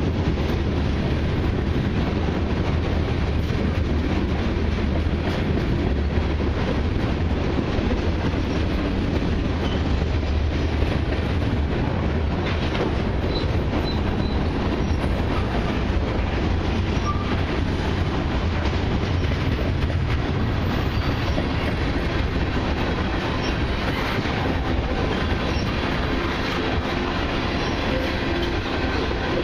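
Freight cars of a long mixed freight train rolling past: a steady rumble of steel wheels on rail, with a few faint, brief wheel squeals.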